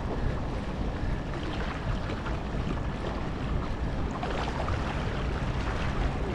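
Wind buffeting the microphone over choppy water lapping against a small boat: a steady rush with a strong low rumble and small splashes.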